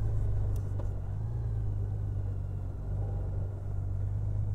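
Honda Gold Wing Tour's flat-six engine running steadily at low revs on the move, with its seven-speed dual-clutch automatic transmission driving: a smooth, low, even engine note that the rider calls silky smooth.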